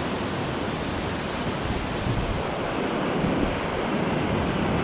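Ocean surf breaking and washing onto a sandy beach, a steady rush, with wind buffeting the microphone.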